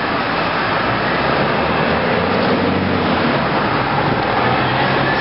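Steady rushing noise with a faint low hum under it.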